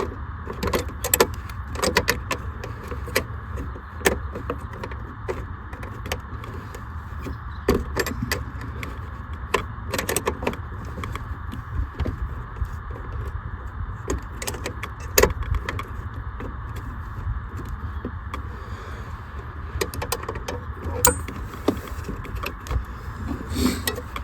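Irregular metallic clicks, clinks and rattles from tools, a bolt and a metal bracket being worked into place to fasten a CB radio mount, over a steady low hum.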